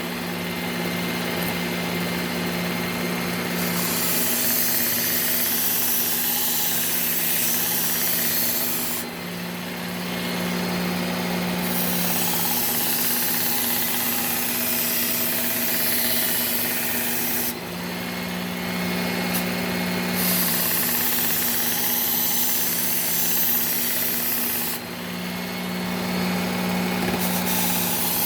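Powered belt knife sharpener running with a fine, strop-like polishing belt. A knife blade is drawn across it in passes: a high hiss of the blade on the belt alternates every few seconds with short spells of bare motor hum as the blade is lifted off.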